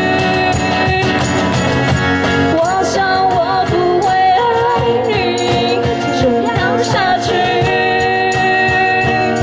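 Live acoustic pop song: two women singing into microphones over a strummed acoustic guitar and a cajon beat.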